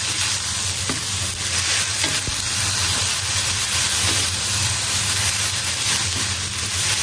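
Bean sprouts sizzling in oyster sauce as they are stir-fried and tossed, with a few faint clicks from the stirring.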